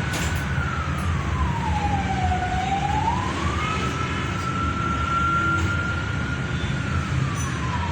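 A siren wailing slowly: one tone holds high, falls, climbs back and holds, then falls again near the end, over a steady low rumble.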